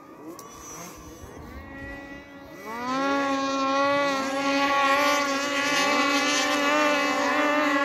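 Snowmobile engines racing, their whines rising in pitch as they speed up. About three seconds in, the sound grows louder and settles into a steady high whine at full throttle.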